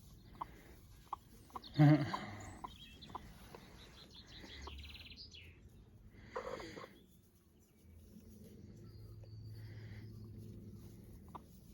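Chickens clucking, with a louder call about two seconds in and another at about six and a half seconds, and short scattered ticks in between.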